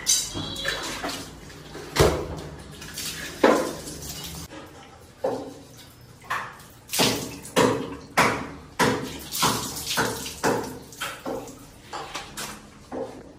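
Wet splashing and slapping as sheep meat and offal are handled and washed in a bucket of water. The short, sharp sounds come about one or two a second in the second half, echoing off the tiled walls of a small room.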